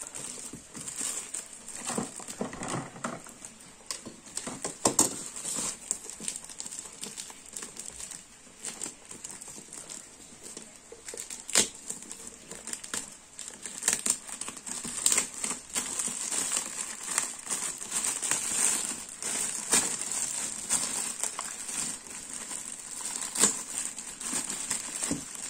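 Clear plastic wrap around a cardboard parcel crinkling and crackling in irregular bursts as hands grip and turn the parcel over.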